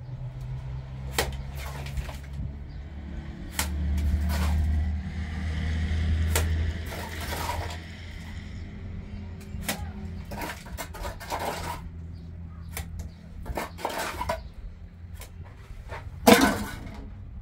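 Scattered knocks, clinks and scrapes of hand tools working cement, over a steady low hum that grows louder for a few seconds early on; one sharper, louder knock comes near the end.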